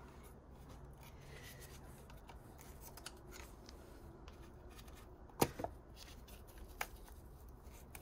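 Faint handling noises from a gloved hand working at the plastic ignition coil connector and its wiring loom. There are sharp clicks about five and a half seconds in and again near seven seconds.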